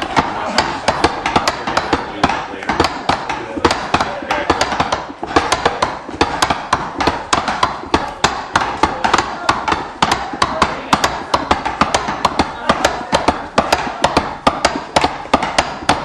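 Rapid, irregular knocking and tapping, several sharp strikes a second, like hammering or tamping work, over continuous background noise that may include voices.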